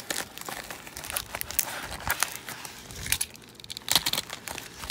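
A plastic bubble mailer being pulled open and handled by hand: irregular crinkling and crackling with many sharp clicks and rustles.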